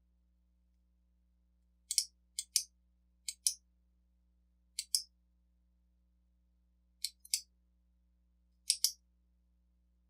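Sharp, high metallic double clicks, six of them spaced irregularly, from a shim and key blank being worked in a mortise lock cylinder while its pin stacks are shimmed open.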